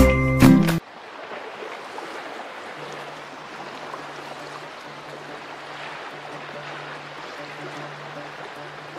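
A short burst of music cuts off just under a second in, giving way to gentle sea ambience: an even wash of water and small waves, with a faint low hum that comes and goes.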